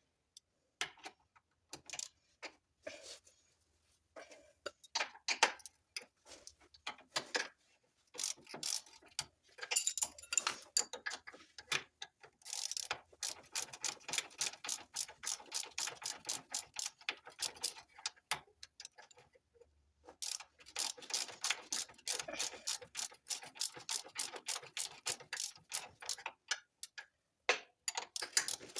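Hand ratchet wrench clicking in long runs of quick, even clicks, with short pauses between runs and scattered clicks in the first part.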